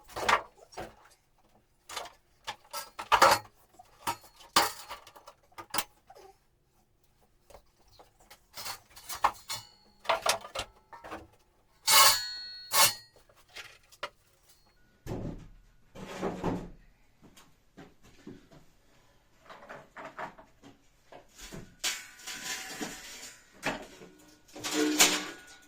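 Scattered knocks and clunks of tools and building materials being handled, with a louder ringing clank about halfway through and a scraping stretch near the end.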